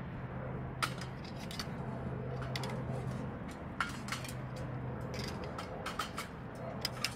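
Wood fire crackling in a metal wood stove: irregular sharp pops and snaps, about a dozen, some in quick pairs, over a steady low hum.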